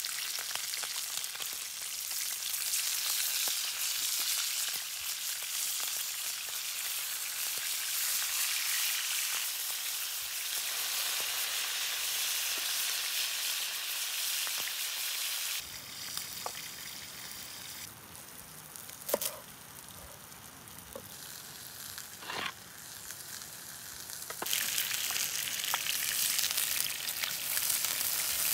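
Lamb rib chops sizzling in hot oil in a frying pan over a campfire, a steady hiss. About halfway through it drops quieter for several seconds, with a few sharp clicks, then comes back loud near the end.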